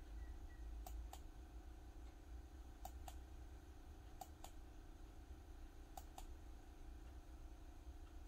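Faint computer mouse clicks, four times, each a quick pair of clicks about a fifth of a second apart, over a steady low hum.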